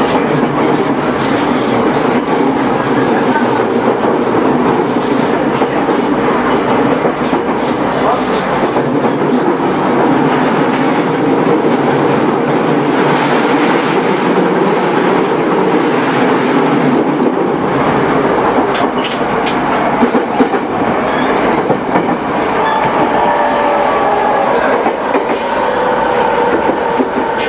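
Running sound of a JR East E217-series electric train with a Mitsubishi IGBT-VVVF inverter: a steady rumble of wheels on rail with clickety-clack. From about twenty seconds in, a whine from the inverter and traction motors rises above the rumble, its pitch falling slowly.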